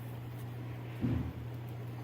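A steady low hum, with one short dull knock about a second in.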